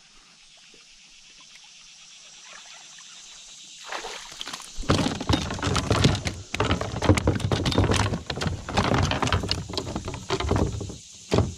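A bass flopping and thrashing on a plastic kayak deck: a dense run of loud thumps, slaps and rattles that starts about five seconds in after a quiet stretch and dies away near the end.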